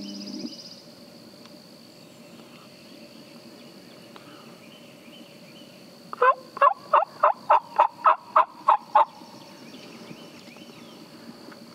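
Male eastern wild turkey gobbling once, loud and close, about halfway through: a quick rattling run of about ten notes lasting close to three seconds.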